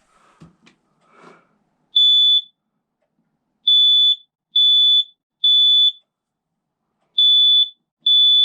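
Smoke alarm's piezo horn sounding on test: loud, high-pitched beeps of about half a second each, one alone about two seconds in, then three in a row, a short pause, and two more, the temporal-three alarm pattern. Faint handling noises come before the first beep.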